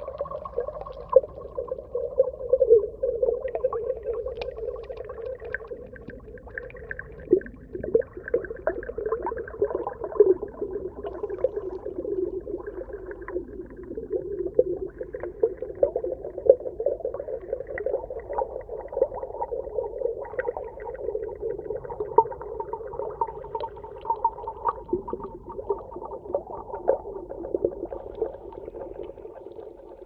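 Muffled underwater ambience: a steady, dull, moaning wash of sound sprinkled with many small crackles and pops.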